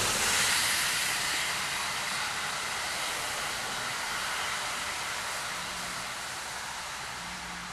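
Steady rushing noise, loudest about the start and slowly easing off over the following seconds.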